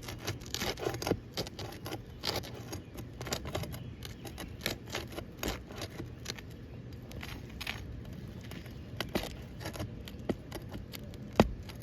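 Roofing nails being pried out of asphalt roof shingles: a steady run of metallic clicks, clinks and scrapes as the tool works under the shingle, with one sharp snap a little before the end.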